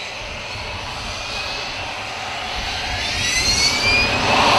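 Jet engines of a Hawker Siddeley Nimrod, four Rolls-Royce Spey turbofans, running as it moves along the runway. A high whine rises in pitch over a steady rumble and grows louder toward the end.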